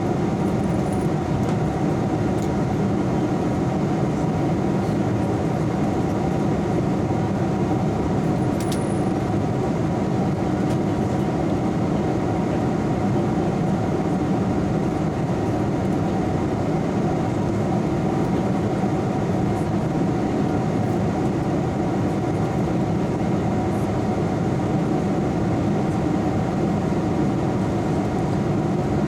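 Steady drone of a jet airliner in flight, heard from inside the passenger cabin: engine and airflow noise, deep and unchanging.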